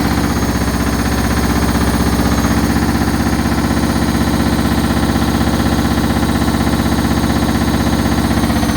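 Hoover HLW585DC washer-dryer spinning at high speed in its final spin with a full load: a loud, steady motor whine and drum hum with a fast regular pulsing. Right at the end the pitch starts to fall as the spin begins to slow.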